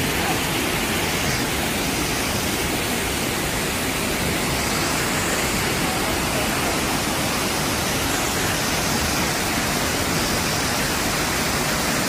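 Steady rushing of a small waterfall cascading over rocks.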